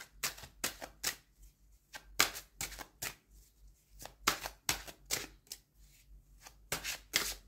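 A tarot deck being shuffled by hand, packets of cards dropped from one hand into the other: a quick, uneven series of soft card slaps and riffles, about two to three a second.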